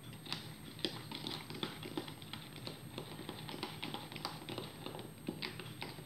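A spoon clicking and scraping against a plastic jug as cake batter is stirred, in quick irregular taps, several a second.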